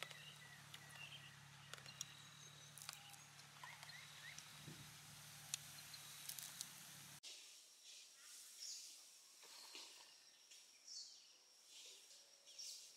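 Faint rural outdoor ambience with scattered short bird chirps and a few soft clicks; a low steady hum underneath cuts off abruptly about seven seconds in, leaving only the faint chirps.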